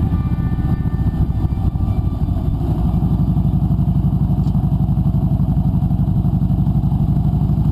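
Kawasaki Vulcan 1700 Voyager's 1,700 cc V-twin engine running steadily while riding, with a fast, even pulse to its exhaust note.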